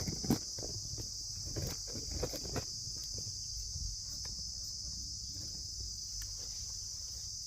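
Steady high-pitched chirring of insects. A few sharp knocks and rustles of handling sound in the first three seconds.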